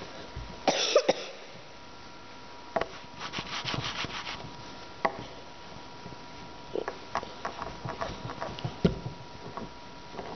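Rolling pin working a sheet of Play-Doh on a tabletop: irregular bouts of rubbing with scattered knocks and taps, the loudest bout about a second in.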